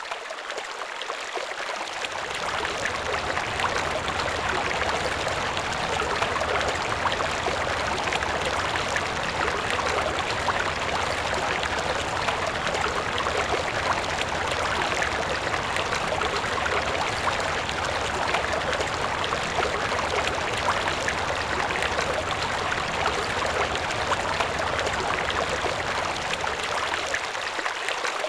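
Steady rushing of running water, fading in over the first two seconds and then holding level, with a low rumble underneath.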